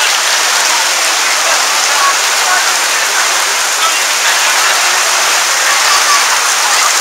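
Heavy thunderstorm rain in a steady, loud downpour, heard from under a gazebo canopy.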